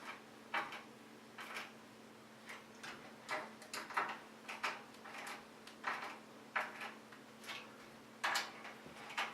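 Phillips screwdriver driving screws through a 120mm case fan's plastic frame: a series of short, faint clicks and creaks, roughly one a second, as the screw turns and the driver is reset between turns.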